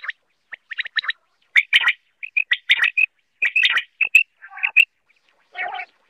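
Common quail (batair) calling: quick clusters of short, sharp notes with brief gaps between them, then a lower, rougher call near the end.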